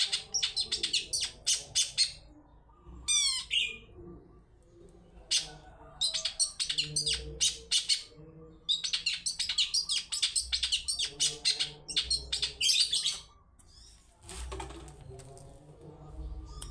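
Long-tailed shrike (cendet) singing in quick runs of sharp, high chirps, broken by short pauses, with a brief falling whistle about three seconds in. This is the lively 'toet toet' song used as a lure to draw other shrikes into calling.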